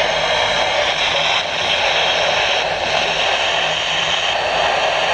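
Steady radio static hiss from a weather radio on a weak signal.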